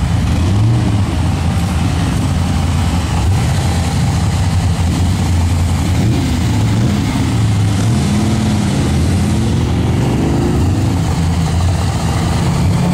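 BMW E39 M5's V8 engine running at low revs as the car creeps away, with a brief light rev about two-thirds of the way through.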